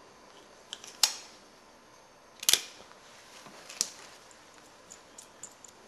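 Small hand tools being handled and set down on a wooden tabletop: sharp clicks and taps about a second in, a louder quick double about two and a half seconds in, and another near four seconds, with faint ticks between.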